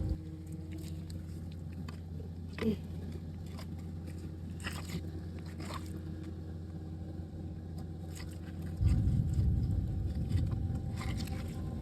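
A few short scrapes and crunches of a shovel digging wet clay and dirt, over a steady low hum. A louder low rumble comes in about nine seconds in.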